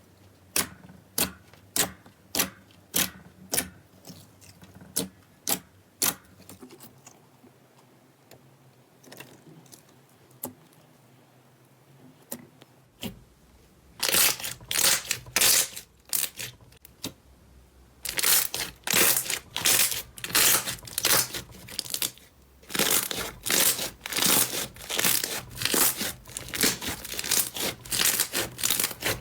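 Slime being played with by hand: sharp pops about twice a second for the first few seconds, then after a quieter stretch, dense bursts of crackling from about halfway on.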